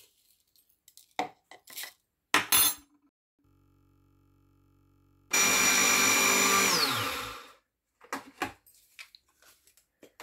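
Electric mixer grinder running in one short burst of about two seconds, grinding roasted fenugreek seeds to powder. Its whine falls as the motor winds down. Plastic clicks and knocks come from the jar being fitted before and handled afterwards.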